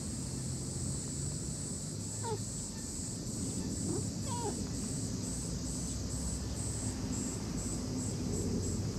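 Insects shrilling high and steady, falling into a quick pulsing rhythm about two seconds in, over a low steady rumble. Two faint short gliding animal calls come about two and four seconds in.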